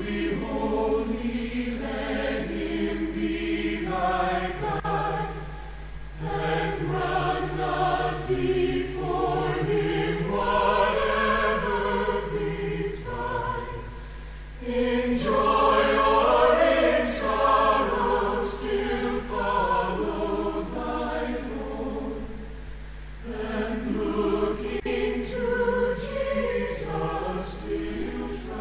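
A choir singing a hymn in long sung phrases, with short breaks between lines about five, fourteen and twenty-three seconds in.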